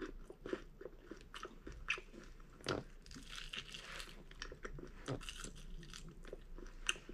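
A person chewing a mouthful of fried chicken wing close to the microphone, with irregular small crunches of the fried skin between wetter chewing sounds.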